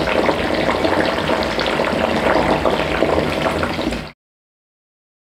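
Battered mushroom pakoras deep-frying in hot oil in a karahi, a dense, steady sizzle and crackle of bubbling oil, the oil well heated over a high flame. The sound cuts off abruptly about four seconds in, leaving dead silence.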